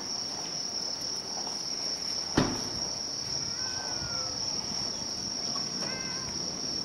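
Insects singing in one unbroken high, steady tone, with a cat mewing faintly twice in falling calls, about three seconds in and again near the end. A single sharp knock sounds about two and a half seconds in.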